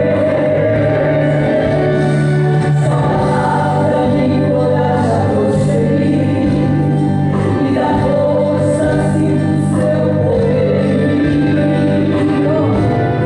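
Two women singing a gospel song as a duet into microphones, over a steady sustained musical accompaniment.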